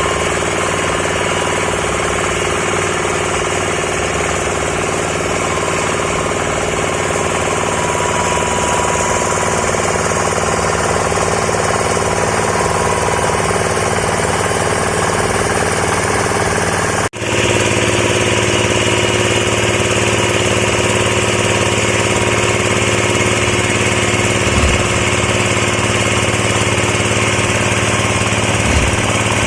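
Engine-driven disk mill for pulverising coconut shell, running steadily. About two-thirds of the way through the sound cuts out for an instant, then carries on slightly louder.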